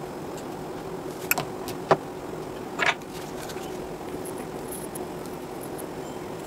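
A few short clicks and knocks in quick succession in the first half, as an electric-scooter charger's circuit board is handled and shifted on the bench, over a steady low hum.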